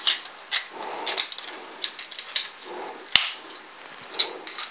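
Handling clicks and taps as whip antennas are fitted onto the connectors of an antenna bracket: small plastic and metal parts knocking together, with a sharper knock about three seconds in.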